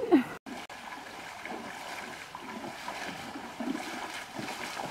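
River water lapping and splashing, with small irregular splashes. At the very start there is a short, loud pitched cry that glides up and down, then the sound cuts out briefly.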